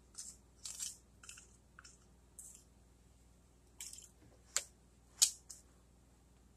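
A spoon scraping and spreading cake batter in a square metal baking pan, in a string of short, soft scrapes with two sharper clicks a little past halfway.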